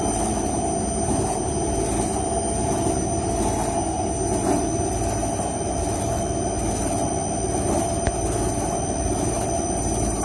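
ERP 900 compressor wrecker running, a steady mechanical drone with a constant high-pitched whine over it.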